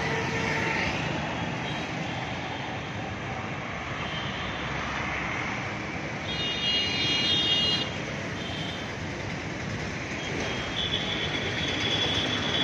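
Steady city road traffic: engines and tyres of cars and motorbikes passing below. A high-pitched vehicle horn sounds for about a second and a half past the middle, and another horn holds a long steady note near the end.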